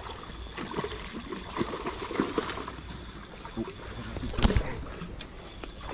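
A hooked trout being reeled in: water splashing with scattered small clicks, and one louder knock about four and a half seconds in.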